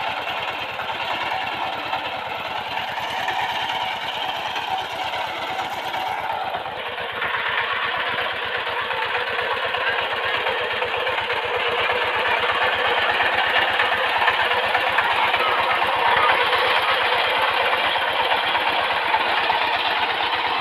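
Single-cylinder diesel engine of a Sifang power tiller running with a rapid, even chugging. It grows louder and brighter about seven seconds in.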